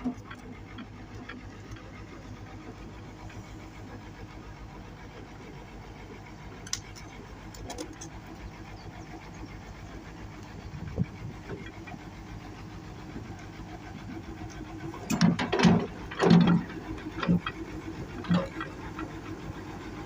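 Hitachi excavator's diesel engine running steadily, with a cluster of loud knocks and clanks about three-quarters of the way through and a few fainter ones earlier.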